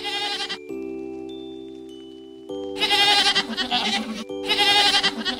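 Goat bleating: a short wavering call at the start, then two long quavering bleats from about two and a half seconds in. Steady background music plays underneath.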